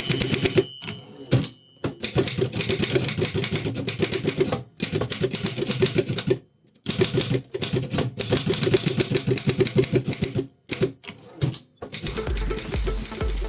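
1933 Continental Standard manual typewriter being typed on: fast runs of keystroke clacks broken by short pauses, with a brief ringing tone about a second in. Music with a steady beat comes in near the end.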